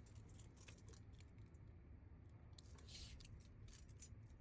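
Near silence with faint scattered light clicks of small lock pins being handled while driver pins are loaded into a lock cylinder.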